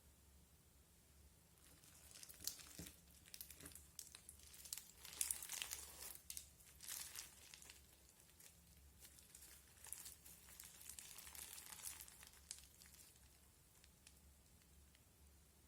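Crunchy slime being worked by hand, making quiet crackling and popping clicks that start about two seconds in, come thickest in the middle and thin out near the end.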